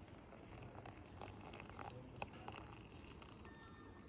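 Faint steady chirring of crickets, with a few small sharp clicks and taps in among it, the sharpest just over two seconds in.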